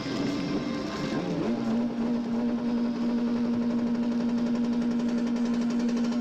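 Jet ski engine running close by, stepping up in speed about a second and a half in and then holding a steady, pulsing note.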